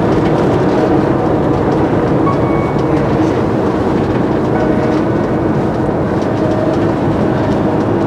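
Steady engine and tyre rumble of a motorhome being driven on an open road, heard from inside the cab.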